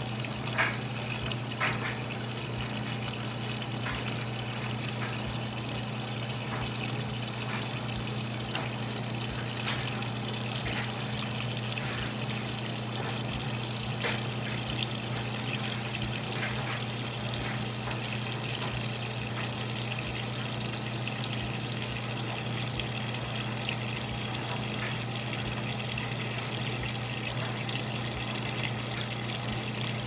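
GE WCSR2090D2WW top-load washer filling: a steady stream of water pours from the fill inlet into the tub onto the clothes, with a steady low hum underneath.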